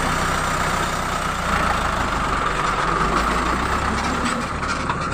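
Light dump truck's diesel engine running steadily as the truck rolls slowly past, its low note dropping away about four seconds in.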